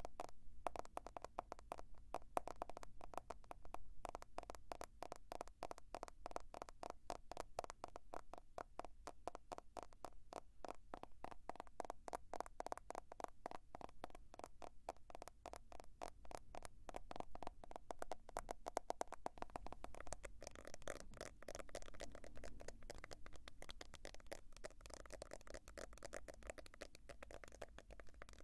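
Fingers tapping rapidly on a smartphone: a fast, dense run of light clicks, many taps a second, going on without pause.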